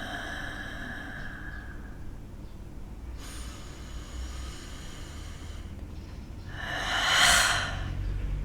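A person breathing audibly, with a long exhale that swells and fades about seven seconds in; a faint steady tone dies away in the first two seconds.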